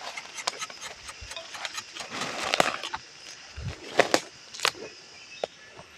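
Rubber tapping knife shaving bark along the tapping cut of a rubber tree: a rasping scrape, then several sharp clicks as the dried latex strip is pulled from the groove.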